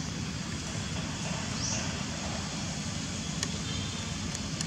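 Steady outdoor background noise with a low rumble. A short rising chirp comes about one and a half seconds in, and a few faint clicks come near the end.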